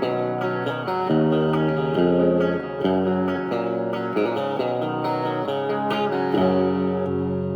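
Fernandes TEJ-70 electric guitar being played, a run of chords and notes struck about once a second, each left to ring into the next.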